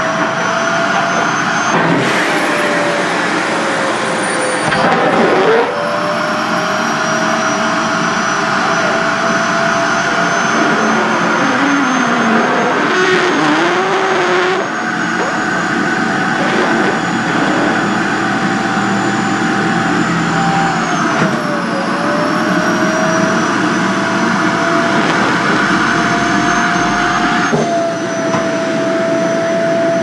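SHARP EC-KP7F-A vacuum cleaner running with a polyester floral skirt drawn into its open hose pipe. The motor whine dips and recovers several times as the fabric chokes the airflow, with a wavering lower tone near the middle.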